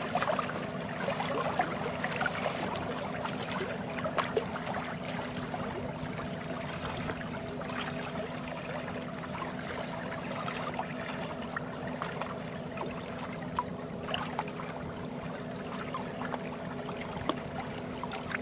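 White Sea water lapping and trickling at the shore, full of small irregular splashes and clicks, over a steady low hum.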